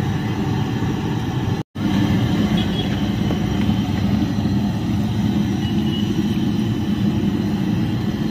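Steady low rumbling background noise with no voices. It drops out for a split second a little under two seconds in.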